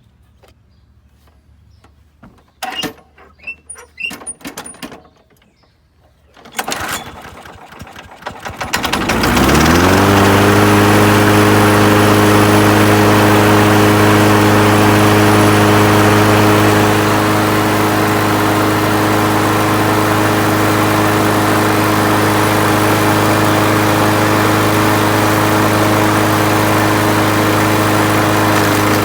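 Craftsman 6.75 lawn mower's small single-cylinder engine being started: a few knocks, then a pull-start rattle. About nine seconds in, the engine catches, climbs quickly to speed and runs steadily. It is running again after its carburetor was cleaned of dirt drawn in from the tank.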